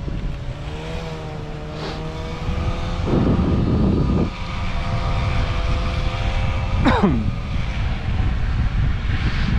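Dog sled running over a snow trail behind its team: a steady rumble and scrape of the runners with wind on the microphone, and faint steady tones under it. About seven seconds in, a short high sound glides quickly downward.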